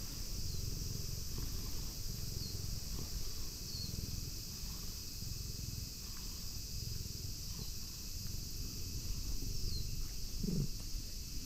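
Tabby cat purring as it is stroked, a low pulsing rumble, with a brief louder low sound near the end. Under it is a steady high insect drone and a few short chirps.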